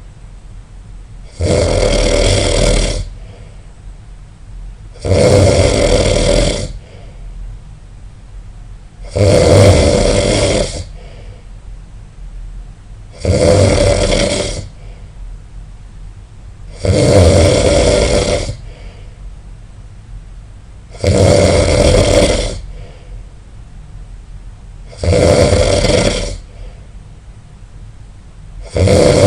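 A person snoring loudly in a steady rhythm: about eight snores, one roughly every four seconds, each lasting about a second and a half, with quiet breathing gaps between them.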